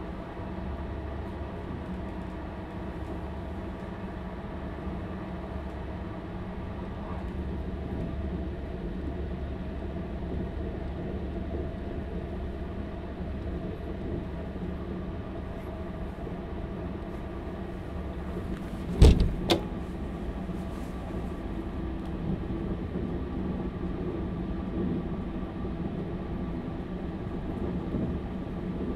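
Inside a Stadler Class 755 FLIRT bi-mode train on the move: a steady drone from its diesel power-pack engines mixed with running noise. About two-thirds of the way through come two sharp knocks, half a second apart, which are the loudest sounds.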